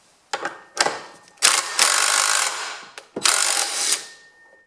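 Impact wrench hammering on the size 21 left-hand-thread sprocket nut of a Husqvarna A100 chainsaw to loosen it, in two loud bursts, the first about a second long and the second shorter, after a couple of sharp clicks.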